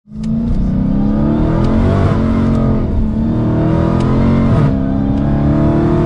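Car engine revving hard, its pitch climbing and dropping back several times.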